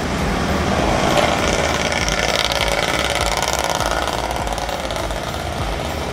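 A road vehicle's engine passing by, swelling about a second in and then slowly easing off.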